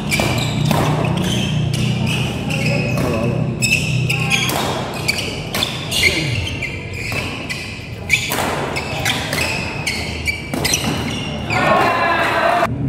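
Badminton doubles rally in a hall: racket strikes on the shuttlecock at irregular intervals, with shoe squeaks and footfalls on the court floor, echoing in the large room.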